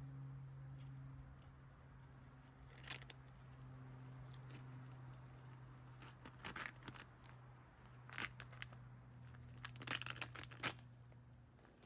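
Faint scattered scraping and crinkling handling noises, a few short ones spread out with the loudest near the end, over a steady low hum.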